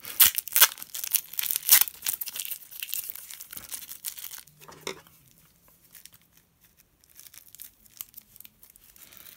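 Plastic packaging crumpled and crinkled by hand, dense crackling for about the first four and a half seconds, then dying down to faint scattered rustles.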